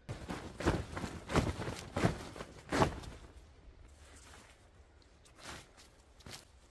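Footsteps on a pine-needle forest floor, four steps at a walking pace, followed by a couple of softer rustles of nylon as a tent's rainfly is handled near the end.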